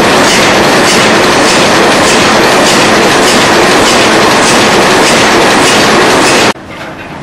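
Ship's diesel engine running under way, a loud, regular mechanical clatter of pistons and valve gear heard right beside it in the engine room. Near the end it cuts off abruptly to a much quieter, duller running sound.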